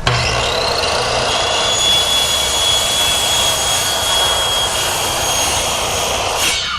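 A power cutting tool running and cutting an access-panel opening through mobile home skirting panel: a steady hiss with a high whine over it, starting abruptly and cutting off about six and a half seconds in.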